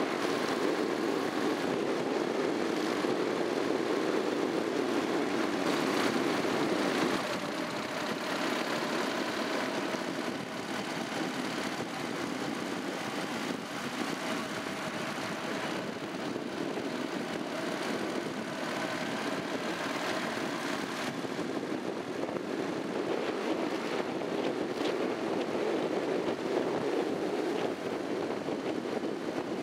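Honda NC700X parallel-twin engine running under way, mixed with steady wind and road rush on an on-board camera microphone. The sound drops a step about seven seconds in and then runs on evenly.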